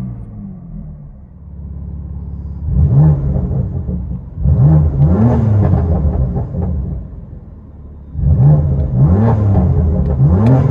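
BMW M3's 3.0-litre twin-turbo inline-six running through a modified exhaust, idling and then revved in quick blips: one about three seconds in, a pair around five seconds, and three in quick succession near the end.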